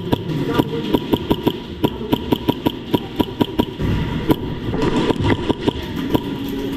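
Airsoft gunfire: sharp cracks, several a second at an irregular pace, over a steady low rumble.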